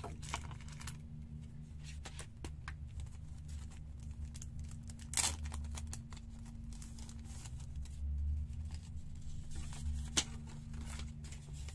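Clear plastic bag crinkling and paper cards rustling as they are handled and pulled out of the bag, with a few sharper crackles, the loudest about halfway through and near the end. A steady low hum runs underneath.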